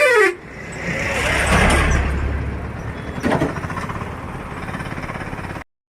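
A vehicle horn sounds briefly at the start, then a vehicle passes with a swelling engine rumble that fades away. The sound cuts off abruptly near the end.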